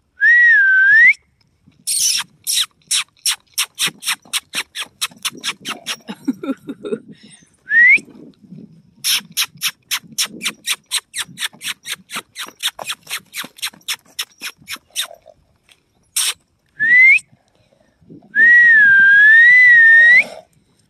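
A person whistling and making quick mouth clicks to call a horse. There is a short wavering whistle, then long runs of sharp clicks about four a second, broken by two brief rising whistles, and near the end a longer warbling whistle.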